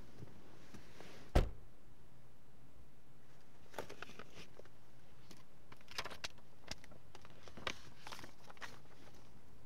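A car door shuts with one loud thud about a second and a half in, heard from inside the cabin. Then a sheet of paper rustles and crinkles in short bursts as it is handled.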